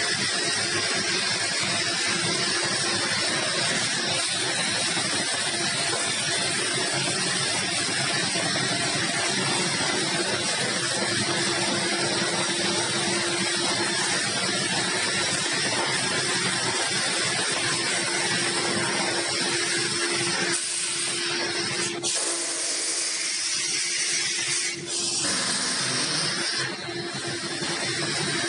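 JYT-B hot melt coating machine running: a steady, dense hiss from its rollers and the moving paper web, with a faint steady hum underneath. About three quarters of the way through, the deeper part of the noise briefly drops away.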